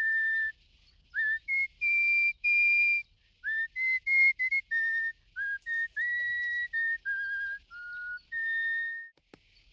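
A whistled tune of clear separate notes, some held and some short, with small slides up into a few of them. It breaks off shortly before the end.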